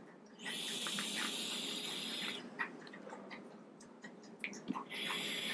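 A vape being drawn on: a steady hiss of air through the e-cigarette tank for about two seconds, starting half a second in. A second long hiss starts near the end, with small clicks between the two.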